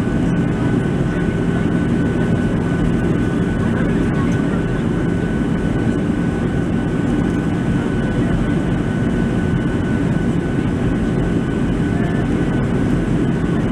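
Steady cabin noise inside a Boeing 737-700 airliner in flight: a deep, even rumble of airflow and the CFM56 engines, with a thin steady whine above it.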